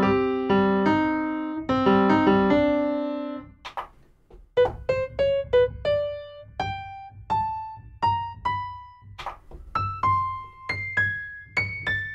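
Sampled grand piano triggered from a MIDI keyboard's drum pads: a few held chords, then single short notes stepping upward in pitch.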